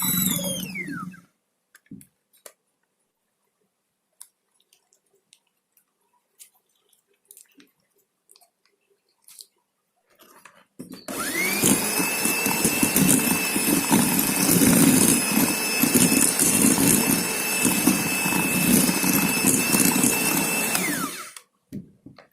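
Electric kitchen mixer beating batter. It winds down right at the start, then after a stretch of faint clicks it starts up again about eleven seconds in. It runs at a steady speed with a high whine for about ten seconds, then winds down near the end.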